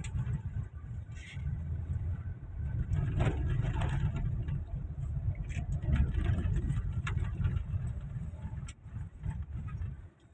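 Steady low rumble of a car driving, heard from inside the cabin, with a few sharp clicks or knocks in the second half.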